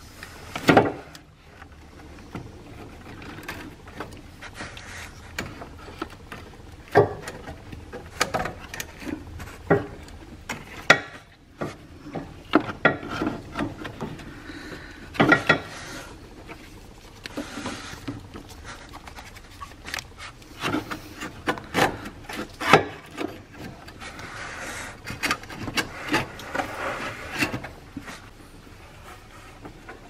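A loose engine mount being twisted and worked up through a tight gap among engine parts by hand: irregular knocks and clunks with rubbing scrapes of metal and rubber against the surrounding parts.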